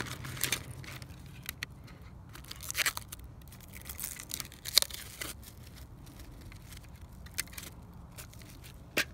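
Clear plastic packaging bags crinkling and crackling in the hands as they are opened and handled, with a few sharper crackles about three and five seconds in and again near the end.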